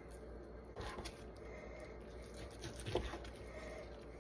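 Knife cutting a raw boneless chuck roast into cubes: faint, soft cuts and wet squishes, with a few light taps about a second in and again near three seconds in.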